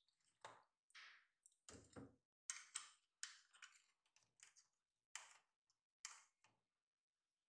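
Light, irregular clicks and scrapes of a fork against a metal baking tray as baked cookies are lifted off it and set on a wire cooling rack.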